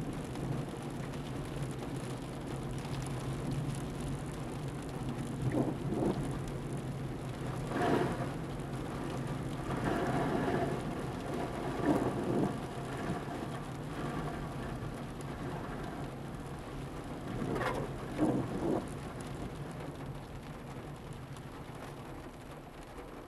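Rain falling on a car, heard from inside the cabin during a slow drive through a flooded road, over a steady low hum. A few brief louder surges of noise stand out, about six to eighteen seconds in.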